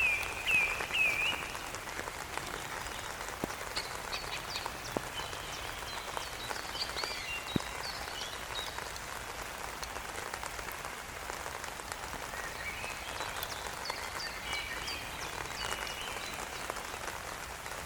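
Steady rain hiss with high chirping animal calls over it, loudest in the first second and a half and returning in clusters.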